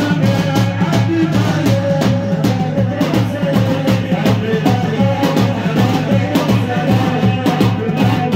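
Nasheed music with a fast, steady drum beat and a melodic line held over it.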